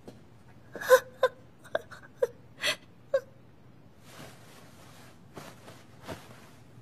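A young woman's voice making short soft whimpers, about six in the first three seconds, followed by a few fainter breathy exhales.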